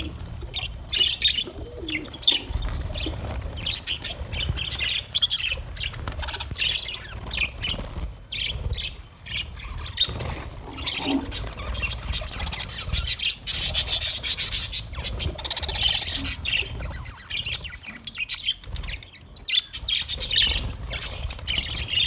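A flock of budgerigars chattering and chirping without a break, with wings flapping at times.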